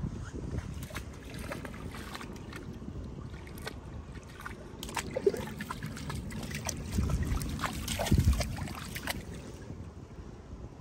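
Water sloshing and trickling, with scattered sharp knocks and the low rumble of wind on the microphone, louder for a stretch about seven to eight and a half seconds in.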